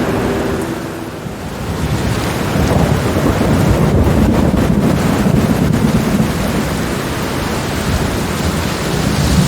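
Steady rain with a long rumble of thunder that builds about two seconds in, is loudest through the middle and eases toward the end.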